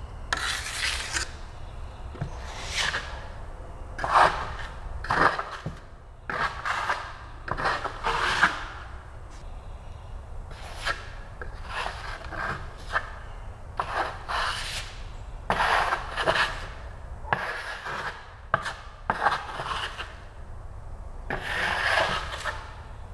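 Steel drywall trowel scraping across wet joint compound on drywall during skip trowel texturing, in repeated sweeping strokes about one a second.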